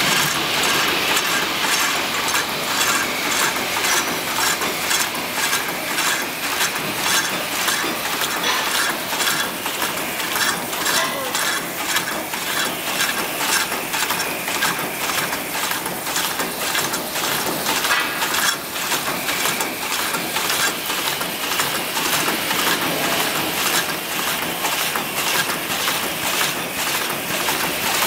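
Orbital coil stretch-wrapping machine running: its film ring turns through a coil of corrugated hose while drive rollers rotate the coil, giving a steady mechanical clatter with an even run of clicks several times a second.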